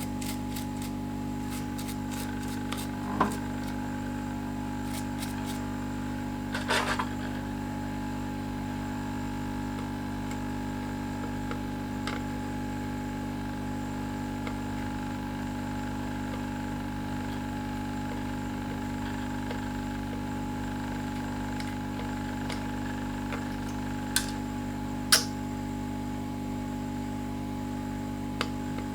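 Steady hum of a small motor or fan running on a repair bench, with a few light clicks and taps of tools on the board.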